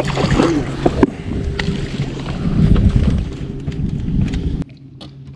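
Wind buffeting and handling noise on the microphone aboard a bass boat, with a steady low hum underneath and a few sharp knocks. The sound drops abruptly in level near the end.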